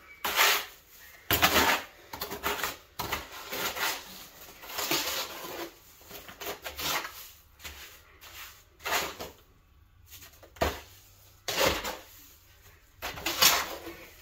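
A trowel scraping and spreading wet mortar on concrete, in irregular strokes with a short pause about two thirds of the way through.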